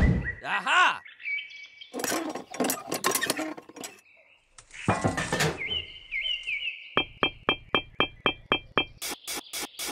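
A string of short chirping and clinking sound effects, broken by a brief hush about four seconds in, then a quick run of chirp-and-click pulses about four a second over the last three seconds.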